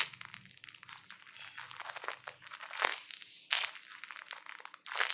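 Crinkling and rustling as squishy toys are handled, with a few sharper crackles about three, three and a half and five seconds in.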